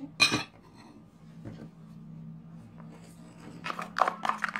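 A metal spoon clinks once against the plastic mixing bowl as spices are tipped in. Near the end comes a quick run of light taps as cornflour is shaken from a small yellow plastic container onto mashed potato and chicken mince, with a low steady hum underneath.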